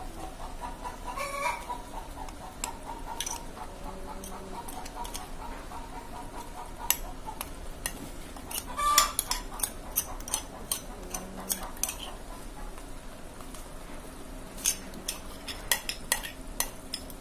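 A chicken clucking in the background for the first several seconds. Then a metal spoon clicks and scrapes against a glass bowl many times as thick masala paste is scraped out.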